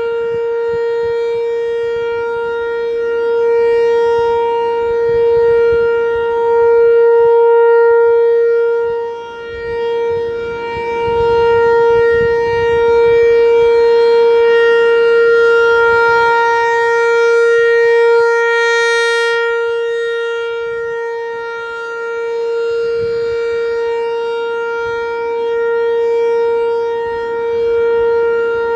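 American Signal T-128 outdoor warning siren sounding a steady tone at one pitch, its loudness swelling and fading as the rotating head sweeps round, with a brief dip about nine seconds in.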